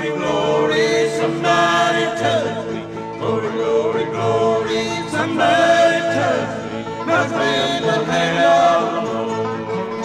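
Bluegrass band singing a gospel song in harmony over banjo, guitar, mandolin, fiddle and upright bass.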